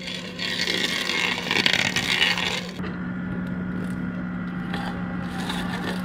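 Backhoe loader engine running at a steady pitch. From about half a second in, a loud burst of wood crunching and scraping lasts some two and a half seconds as the stump crusher attachment tears into a tree stump, then drops back to the machine's steady running.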